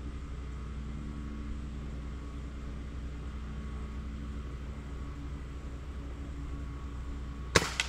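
A single sharp shot from a Gamo Swarm Whisper .22 break-barrel air rifle near the end, followed a fraction of a second later by a fainter second crack, over a steady low background hum.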